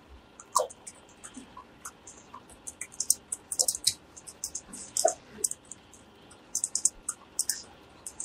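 Typing on a laptop keyboard: quick, irregular key taps in short runs.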